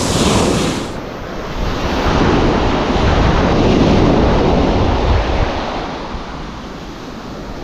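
Surf breaking and washing up a gravel beach, swelling to its loudest in the middle and easing off near the end, with wind buffeting the microphone.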